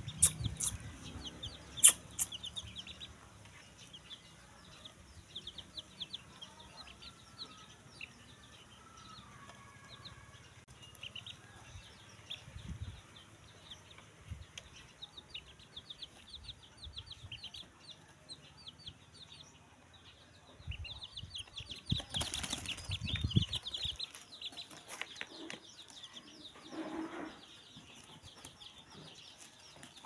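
Newly hatched chicks peeping: many short, high cheeps repeat throughout. About 21 seconds in there is a louder burst of rustling and scuffling lasting a few seconds, and a lower call follows near 27 seconds.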